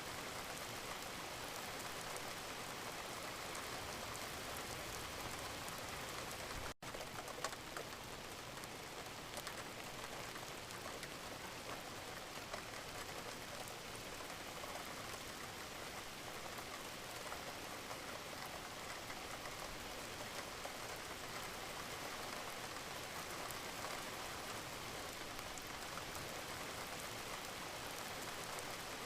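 Steady rain falling, a dense even hiss with fine ticks of separate drops. It cuts out for a split second about seven seconds in.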